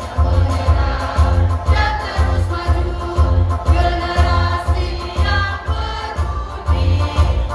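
Mixed choir singing with electronic keyboard accompaniment, over a steady bass beat about twice a second.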